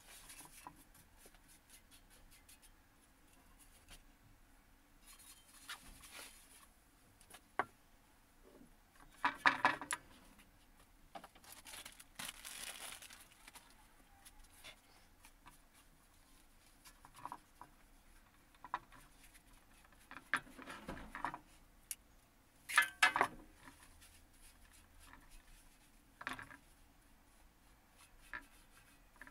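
Scattered scraping, rubbing and clattering of hand work on a freshly painted steel shovel blade and the tools beside it, in short bursts with quiet gaps, including one longer hiss-like stretch about twelve seconds in.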